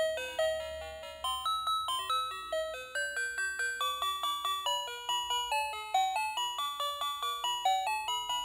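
Battery-operated walking toy cow playing its built-in electronic jingle: a melody of short single notes, several a second.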